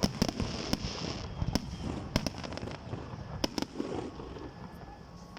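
Fireworks bursting: sharp bangs at irregular intervals over a crackling hiss, thinning out and growing quieter toward the end.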